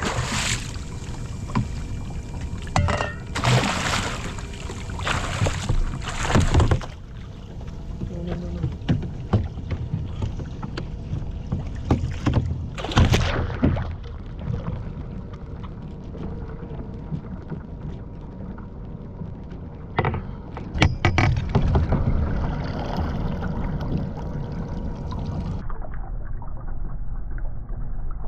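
A hooked barracuda thrashing and splashing at the surface beside a kayak, in a run of loud splashes over the first seven seconds and again briefly about 13 and 21 seconds in, with a steady low wash of water between.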